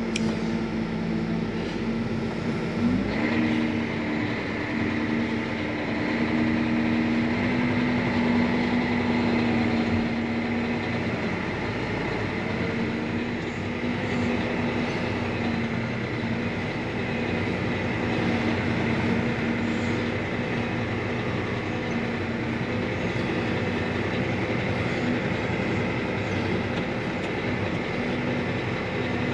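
John Deere tractor engine heard from inside the cab, working under heavy load as it pulls a disc stuck in mud out on a chain. The engine note rises about three seconds in and then holds steady.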